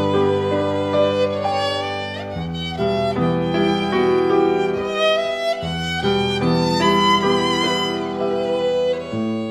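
Violin playing a melody with vibrato over an accompaniment of low held notes that change every couple of seconds.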